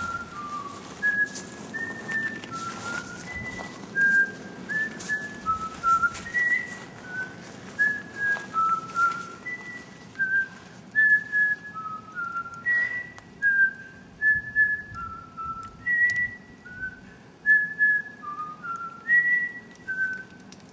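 A person whistling a tune: a run of short clear notes stepping up and down.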